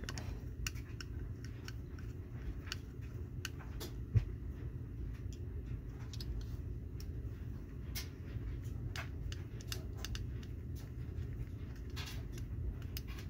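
Scattered small clicks and taps of a diecast model truck and a clear plastic packaging piece being handled and worked apart by hand, with one sharper knock about four seconds in, over a low steady hum.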